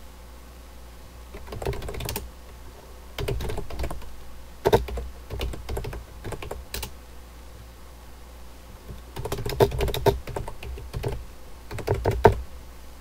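Typing on a computer keyboard: several quick flurries of keystrokes with pauses between, the longest pause in the middle. A low steady hum lies underneath.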